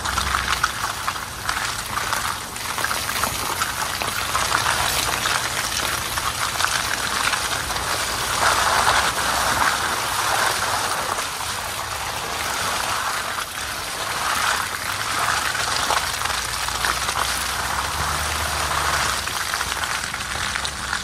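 Pickup truck's tyres rolling through wet mud and puddles on a dirt track: a steady crackling, splashing wash of tyre noise with fine grit and mud pattering, loudest about nine seconds in, over a low engine hum.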